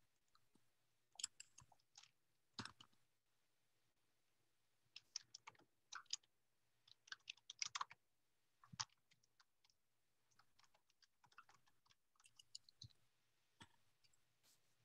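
Faint computer keyboard typing: keys click in short quick runs with pauses between them.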